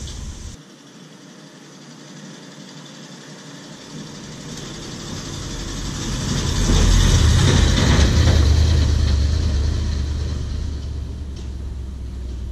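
Cat 304 mini excavator's diesel engine running, swelling from about four seconds in to its loudest a little past the middle, then slowly easing off.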